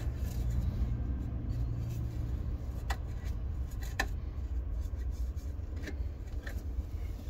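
A steady low rumble with a few sharp clicks and taps in the second half, from handling close to the microphone while PVC primer is being applied.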